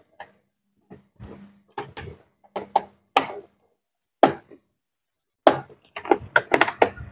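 Flat-blade screwdriver prying at the seam of a stand fan's plastic column housing: a run of short plastic clicks, knocks and scrapes, a few a second, thickening into a quick cluster of snaps near the end. The housing is stiff and hard to open.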